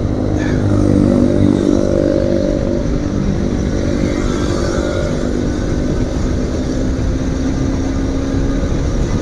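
Royal Enfield GT 650's parallel-twin engine with an aftermarket SC Project exhaust, running steadily under way at an even throttle.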